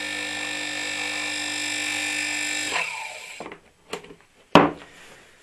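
Salamander pump's single-phase induction motor running with a steady hum and whine, wired straight to live and neutral and started on a capacitor that tests 5.5 µF against its 7 µF rating. It stops just under three seconds in, fading out over about half a second, and is followed by a few clicks, the last one sharp and loud.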